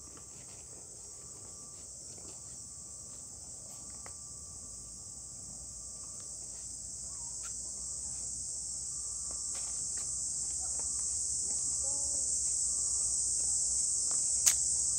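Insects calling in a steady high-pitched shrill that grows gradually louder, with a single sharp click near the end.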